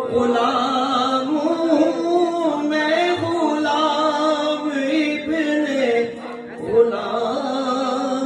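A man reciting a naat, unaccompanied devotional singing in long, drawn-out melodic phrases into a hand microphone. There is a brief pause for breath a little past halfway.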